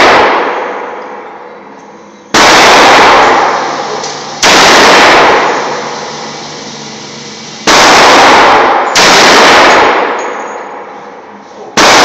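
A .45 ACP 1911 pistol fired five times in slow, aimed succession, one shot every one to three seconds. Each shot is a very loud crack followed by a long echo that dies away over a second or two in the enclosed indoor range.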